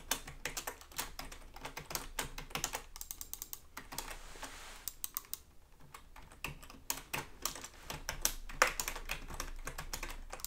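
Quick, irregular tapping and clicking, close up, with a brief lull about halfway through.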